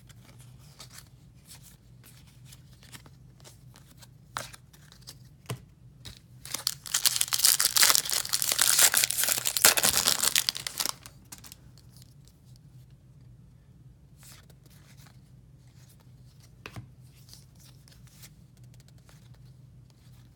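Baseball card pack wrapper being torn open and crinkled: a loud stretch of tearing about six seconds in, lasting around four seconds. Faint clicks of cards being handled before and after it.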